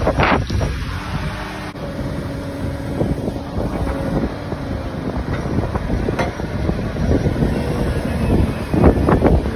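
Farm loader engine running steadily, with wind buffeting the microphone and a few knocks near the end.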